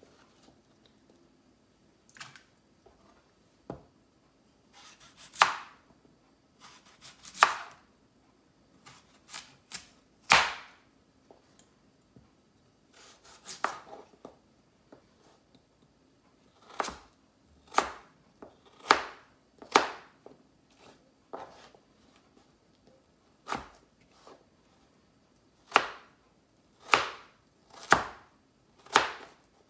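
Kitchen knife cutting raw potatoes into fries on a white cutting board: a sharp knock each time the blade goes through and hits the board, spaced irregularly at first, then about one cut a second in the second half.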